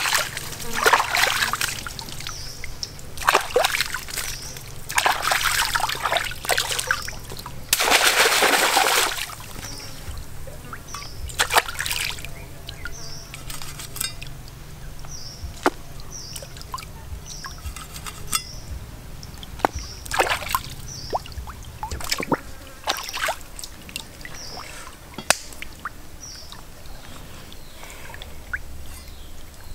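Stream water splashing and sloshing around a person wading, loudest in the first several seconds, followed by a run of sharp separate chops as a meat cleaver strikes a whole plucked chicken hung from a branch. A short high chirp repeats about once a second.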